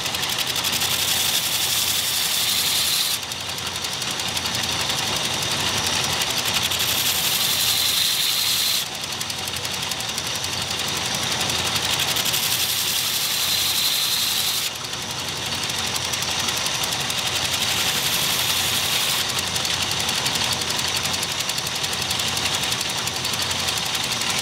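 Belt grinder running with a coarse-grit belt while a steel knife blank cut from a circular saw blade is ground against it. There are three spells of loud, hissing grinding, each a few seconds long, and between them the machine runs on its own, more quietly.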